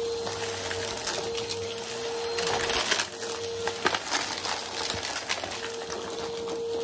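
Upright bagless vacuum cleaner running over shag carpet with a steady motor whine, pushed back and forth. Small hard debris crunches and clicks as it is sucked up through the nozzle, with the sharpest clicks a few seconds in.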